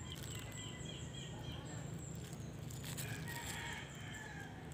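Birds calling in the background: thin high calls through the first two seconds, then a longer, lower call about three seconds in, over a steady low hum.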